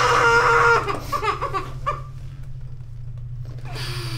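A high-pitched voice holding a long wailing cry that breaks off under a second in, followed by short broken cries and one brief falling sound near the end. A steady low hum runs underneath.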